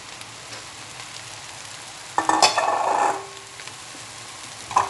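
Hot oil sizzling in a wok as chopped boiled papaya leaves are tipped in from a stainless-steel bowl. About two seconds in, a loud metallic clatter and scrape from the bowl against the wok, lasting about a second, with another short knock near the end.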